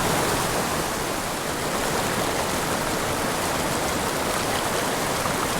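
Steady rush of a small mountain creek tumbling among boulders.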